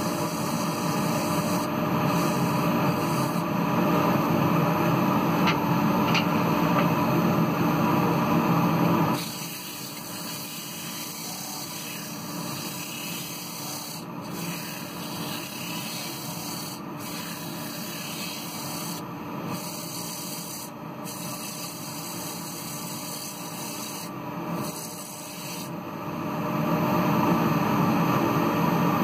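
Ash bowl spinning on a wood lathe while being hand-sanded with abrasive paper: a steady rubbing hiss over the lathe's running hum. It drops to a softer level about nine seconds in and rises again a few seconds before the end.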